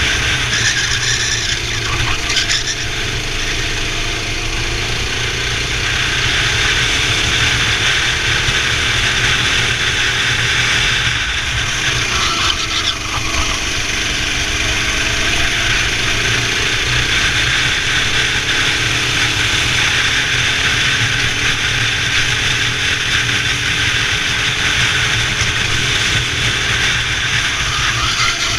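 Go-kart engine running at race pace, its pitch rising and falling over a few seconds at a time as the kart accelerates and slows, over a steady noisy rush.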